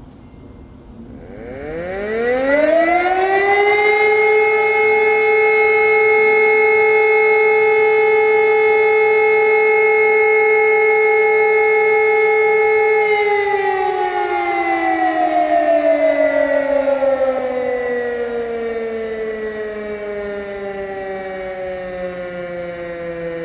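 Civil-defence sirens, a German E57 electromechanical siren together with an Ergatec EWS4 electronic siren, with the E57 far the louder, sounding the first tone of the 'Feueralarm' test signal. The siren winds up about a second in, rising in pitch to a loud steady tone that holds for about nine seconds, then winds down in a long falling glide.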